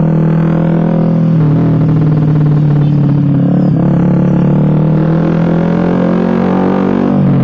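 Suzuki GSX-R150's single-cylinder four-stroke engine running steadily under way through an aftermarket SC Project-style racing exhaust, a loud droning note that shifts pitch briefly a few times.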